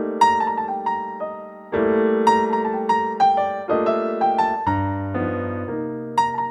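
Background music played on an electric piano: struck notes that ring and fade over sustained chords, with a bass line coming in about two thirds of the way through.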